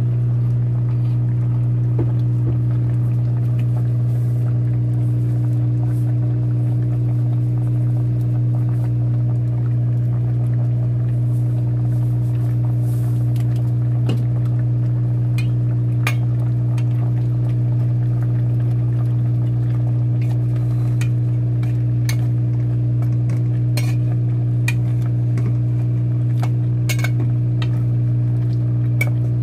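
A steady low hum, with scattered light clinks of a metal ladle against a cooking pot of pork-bone and cabbage soup. The clinks come more often in the second half.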